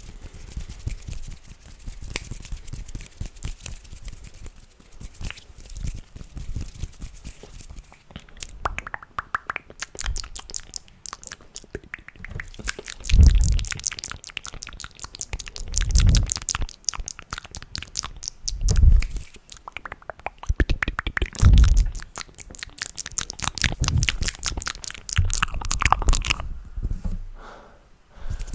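Close-miked ASMR mouth sounds: a dense run of rapid wet clicks and smacks, broken by four deep thumps a few seconds apart in the middle.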